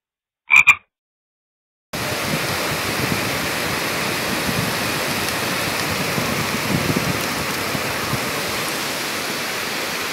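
Heavy rain falling: a steady, dense hiss that starts abruptly about two seconds in. Before it, one brief pitched call about half a second in, then silence.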